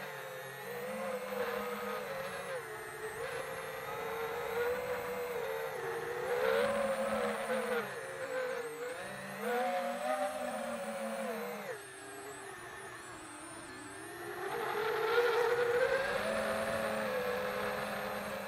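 FPV quadcopter's brushless motors and propellers whining, the pitch rising and falling with the throttle. It eases off for a couple of seconds partway through, then climbs and grows louder again.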